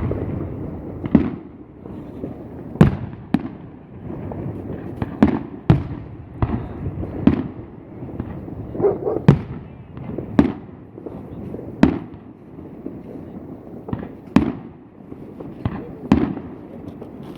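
Fireworks display: a run of sharp aerial shell bangs at uneven intervals, roughly one a second, each trailing off in a rolling echo.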